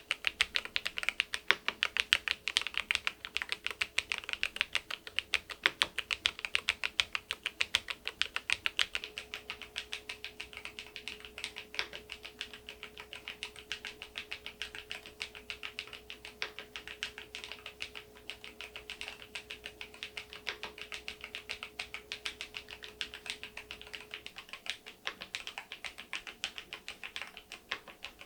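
Continuous fast typing on a Keysme AIM04 HE aluminium keyboard with magnetic switches: a dense stream of keystroke clacks, harder for about the first nine seconds, then lighter.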